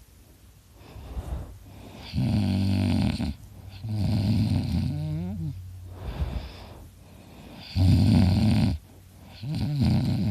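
A person snoring heavily in sleep, described as sounding like a chainsaw. Two snore cycles, each a loud snore about a second long followed by a longer one that wavers in pitch, with quieter pauses between.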